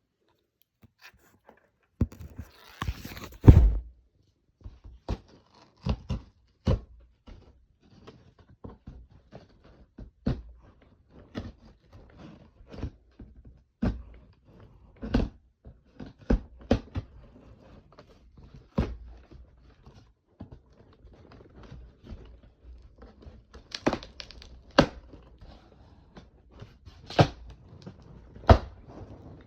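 A box and its packaging being handled and opened: scattered knocks and taps, with a rustling tear about two to four seconds in.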